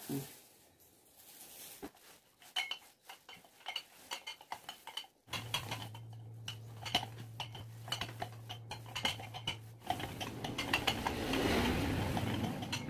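Plastic sheeting crackling and rustling with many small clicks and knocks as a cylinder is rolled over it to press soft molido candy mixture flat on a wooden table. A low steady hum joins for several seconds in the middle, and the rustling grows denser near the end.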